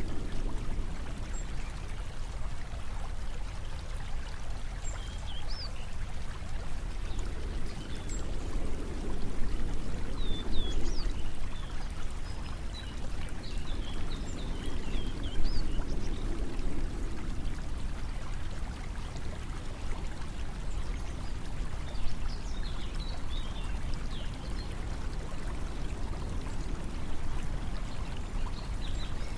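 Steady rush of flowing water that swells gently twice in the middle, with faint, short, high chirps scattered throughout.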